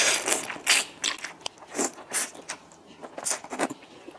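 Close-up eating sounds of soft, saucy tofu-skin sheets (qianzhang): a slurp as it begins, then irregular wet chewing and lip smacks.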